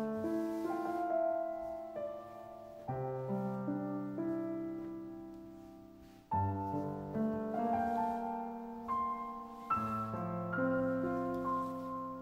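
Background music: a solo piano playing slow chords, a new chord struck about every three and a half seconds and left to ring and fade.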